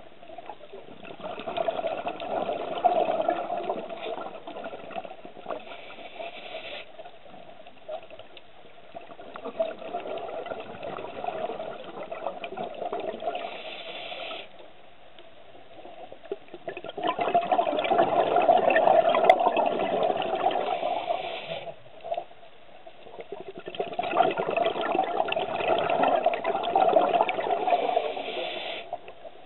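Scuba divers' exhaled bubbles heard underwater, bubbling out of a regulator in four bursts of several seconds each, separated by quieter pauses between breaths.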